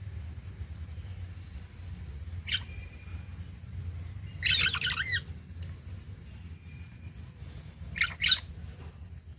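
Pet budgerigars calling: a short chirp about two and a half seconds in, a brief burst of chattering about four and a half seconds in, and two sharp chirps near the end, over a steady low hum.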